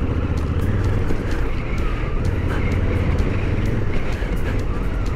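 Adventure motorcycle's twin-cylinder engine running steadily at low speed across a rutted dirt field, with scattered small clicks and knocks over the rough ground.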